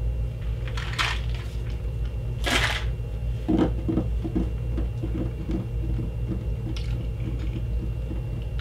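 Crunching and chewing a mouthful of tiny hard Nerds-style candies (Oka Loka Nanos): a run of short crunches, about two or three a second, starting about three and a half seconds in, after two brief rustling sounds. A steady low electrical hum runs underneath.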